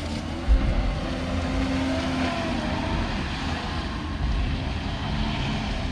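Vehicle engine running with a steady low rumble, and a single thump about half a second in.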